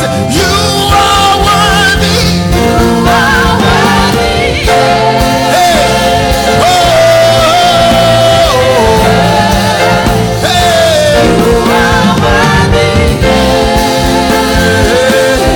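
Gospel worship music: singers holding and bending long sung notes over a steady band accompaniment.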